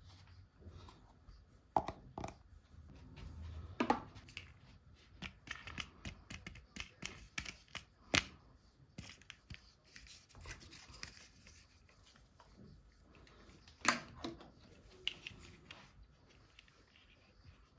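Hands unboxing toys: irregular clicks, taps and rustling of packaging, with a few sharper knocks about 2, 4, 8 and 14 seconds in.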